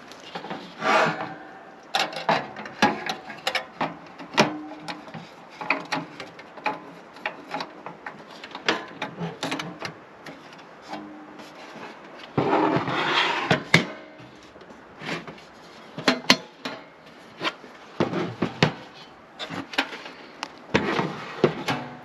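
Objects being handled by hand: irregular clicks and knocks throughout, with longer rubbing or scraping sounds about a second in, a louder one in the middle, and more near the end.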